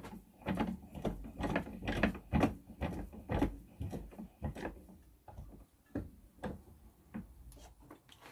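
Irregular knocks, clicks and clatter of hard objects being handled, a few a second at first, growing sparser and fainter toward the end.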